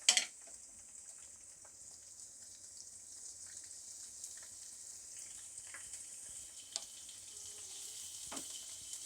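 Ginger and garlic sizzling steadily as they fry in hot oil in a pan. A sharp knock comes right at the start, and a few faint clicks follow later.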